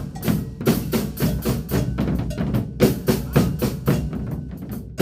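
Afro-Brazilian percussion ensemble playing a coco virado rhythm: dense, rapid drum strokes over a deep bass drum, quickening into a flurry of strokes near the end.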